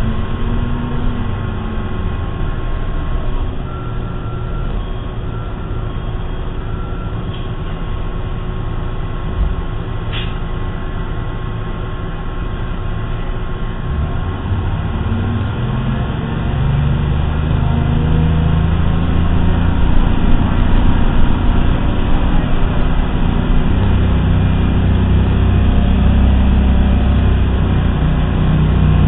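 Inside a 1988 Orion I transit bus under way: its diesel engine drones under road and body noise. The engine note grows clearly louder and heavier about halfway through and again near the end. The uploader describes the engine as bad.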